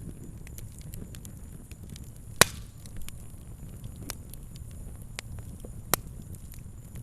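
Fire crackling: a low rumble of flames with scattered small snaps, and two loud pops, one about two and a half seconds in and one near the end.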